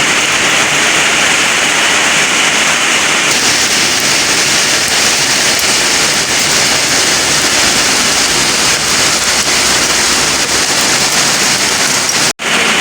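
Heavy rain mixed with hailstones pelting down, a loud steady hiss with faint scattered ticks. The sound cuts out for a split second near the end.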